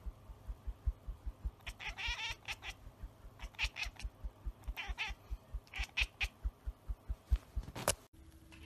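Domestic cat chattering, the call cats make on spotting a bird or insect they cannot reach: about five short bursts of high, warbling chirps over a rapid run of soft low thumps.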